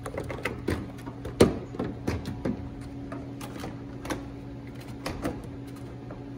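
Plastic headlight housing being handled and pushed back into place in a pickup's front end: a run of irregular plastic clicks and knocks, the loudest about a second and a half in, thinning out after the first few seconds, over a steady low hum.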